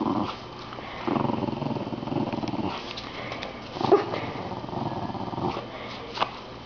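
Small dog growling playfully while tugging on a plush toy in tug-of-war, in long stretches of growl with short pauses between. A brief sharp click near the end.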